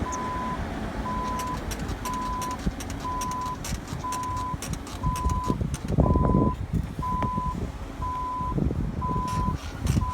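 Reversing warning beeper sounding one steady high beep about once a second, the sign of a vehicle in reverse. Under it is a low vehicle rumble with scattered sharp ticks, and the rumble swells about six seconds in.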